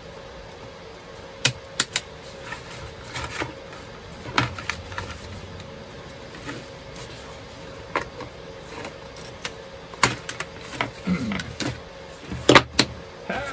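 Small plastic one-handed bar clamps being pulled off their cardboard backing card: sharp plastic clicks and clatter at irregular moments, with light rustling of the card in between.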